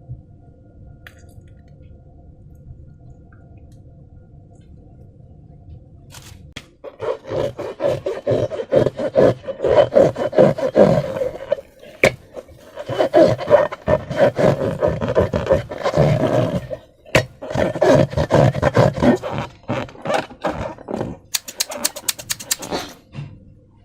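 Slime being squeezed and worked by hand: a fast, irregular run of wet squelches and sticky crackles, starting about seven seconds in after a faint steady hum, with a few short pauses.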